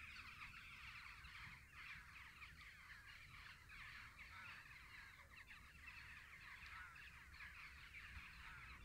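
A large flock of birds in flight, calling all at once: a faint, continuous chatter of many short overlapping calls.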